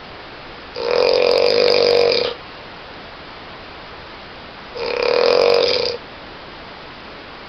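A sleeping person snoring loudly, two snores about four seconds apart, each lasting a second or so, with a steady hiss between them.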